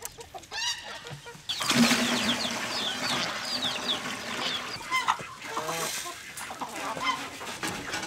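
Water from a garden hose running into a plastic bucket, starting about one and a half seconds in, with chickens clucking around it.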